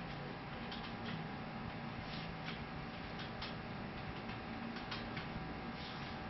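Damp rag wiped across a floor by hand: faint irregular scuffs and ticks over a steady hiss and hum.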